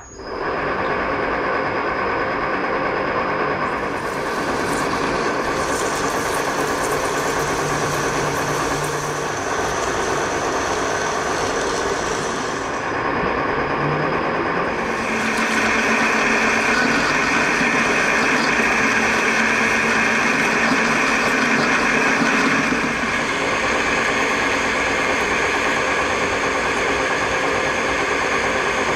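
A metal lathe starts up and runs steadily while a drill bit held in the tool post is fed into a spinning 3-inch bar. The steady motor and gear hum carries a cutting noise that comes and goes and is loudest from about halfway.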